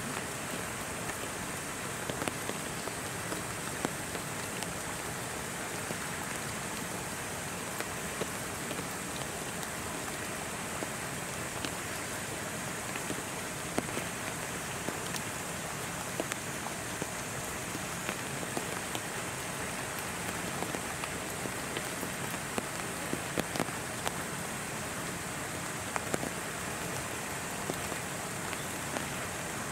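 Steady rain falling, a constant hiss with many small irregular drop ticks hitting close by.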